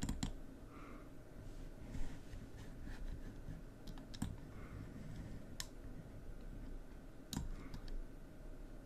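Faint, sharp computer mouse clicks, a handful at irregular intervals, over low room noise.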